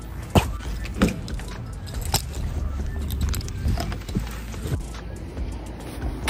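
Handling noise from a phone camera carried on foot toward a car: a few sharp clicks and knocks over a low rumble, with a heavy thump at the very end.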